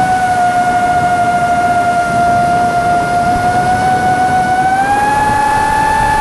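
A motor running with a steady high whine over a noisy rumble, its pitch stepping up slightly about five seconds in.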